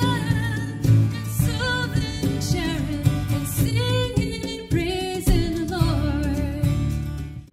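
A woman singing a slow worship song with held, wavering notes, accompanied by her own acoustic guitar. The sound drops away suddenly at the very end.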